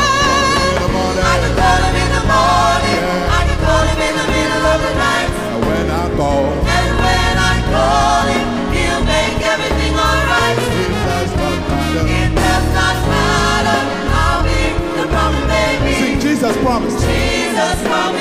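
Gospel vocal group singing live with vibrato-laden, wavering melodic lines, over instrumental backing with a steady bass line.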